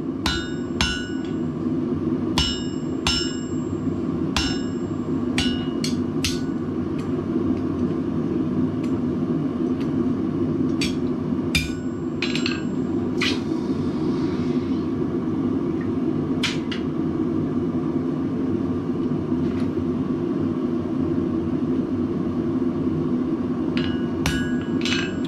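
Hand hammer striking red-hot steel on an anvil, each blow ringing: a quick run of strikes in the first six seconds or so, then scattered single blows, and a few more near the end. A steady low drone from the forge runs underneath.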